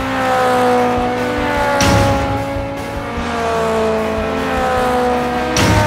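Race car engine sound effects: high engine notes passing by and falling in pitch, with a whoosh about two seconds in and another near the end as cars speed past.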